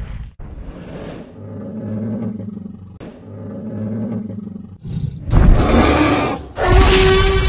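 Tyrannosaurus rex roar sound effect: two low growls, then a loud roar about five seconds in and a second loud roar with a ringing, horn-like tone near the end.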